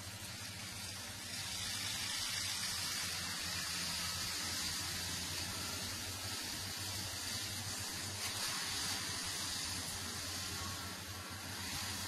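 Large tractor's diesel engine working under load while its front-mounted forestry mulcher shreds young spruce trees: a steady low engine drone under a dense hiss of chipping wood. It grows louder about a second in as the mulcher bites into the trees.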